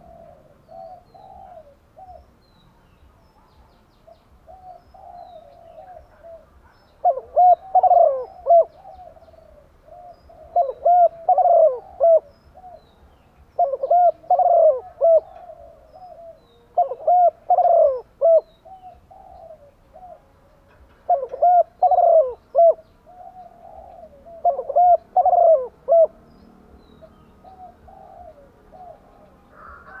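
Female spotted dove cooing: six loud phrases of several coos each, one every three to four seconds, with softer coos between them. This is the female's call, used as a lure to excite male doves.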